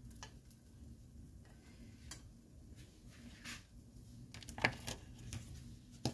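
Faint kitchen handling noises: a few isolated light taps, then a busier run of clicks and knocks from kitchen items being handled in the last two seconds, over a low steady hum.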